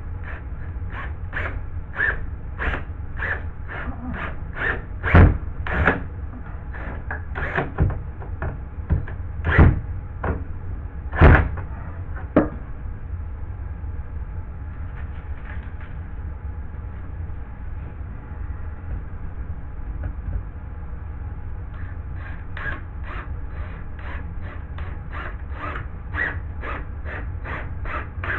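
A hammer tapping in a steady rapid run, about two or three light blows a second with a few heavier strikes in between, pausing in the middle and starting again near the end.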